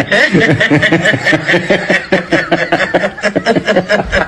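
Sustained human laughter in quick, repeated "ha-ha" pulses with no break.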